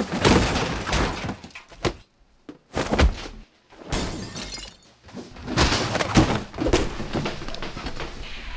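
Stack of cardboard parcels thrown down, landing with a loud thud and clatter. Several more bouts of knocking, scraping and rustling of cardboard boxes follow, with short quiet gaps between them.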